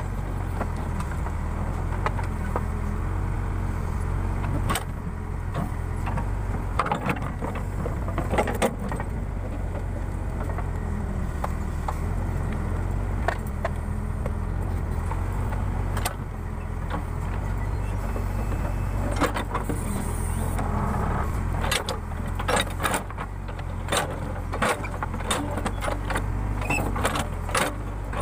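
Case 580 Super K backhoe loader's diesel engine running steadily while digging, with scattered metallic clanks and knocks from the bucket and arm, coming more often in the last several seconds.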